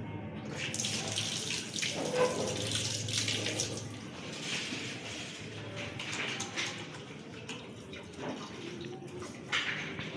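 Water running steadily from a tap into a sink while hands are washed under it, starting about half a second in.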